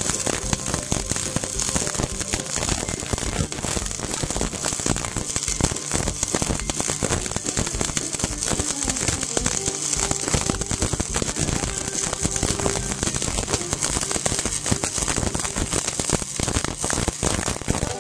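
Stick (shielded metal arc) welder arc burning on a steel workpiece: a steady, dense crackle and sizzle of the electrode rod as the weld bead is laid.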